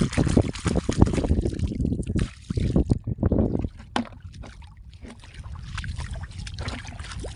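Shallow seawater splashing and sloshing as a hand digs into the wet sandy bottom of a tidal flat, busiest for the first few seconds, then softer sloshing.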